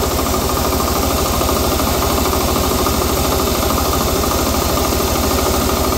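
10 hp diesel engine of a homemade 5 kW generator idling steadily at low speed, with an even, fast low pulsing.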